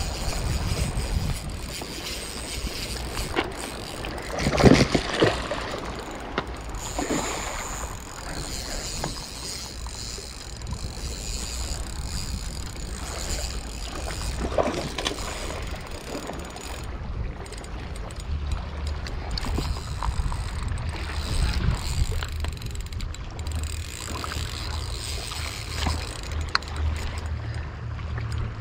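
Wind buffeting the microphone over water washing against shore rocks, with the whir of a Daiwa Fuego 3000 LT spinning reel being cranked. A louder knock about four and a half seconds in, and smaller ones near 7 and 14.5 seconds.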